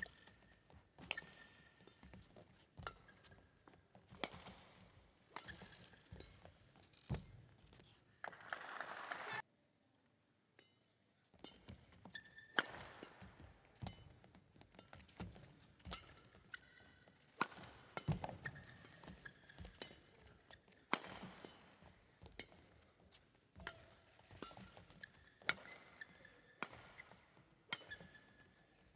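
Badminton rally: sharp racket strikes on the shuttlecock about once a second, with court shoes squeaking on the floor. About eight seconds in there is a short burst of crowd noise, then about two seconds of near silence before play starts again.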